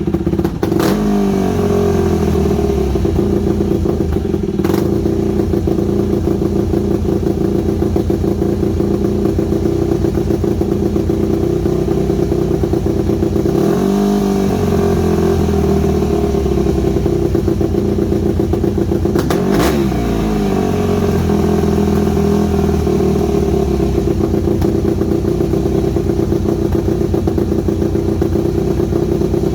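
Yamaha WR250F single-cylinder four-stroke dirt bike engine running through a stainless White Brothers exhaust, mostly steady, with short throttle blips near the start, about halfway and about two-thirds through. It runs with an idle issue that the owner puts down to the carburettor, not sure whether the idle jet is fully unblocked.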